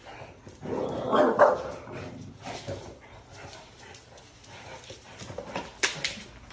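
A dog barking and vocalising, loudest about a second in, followed by quieter sounds and two sharp knocks near the end.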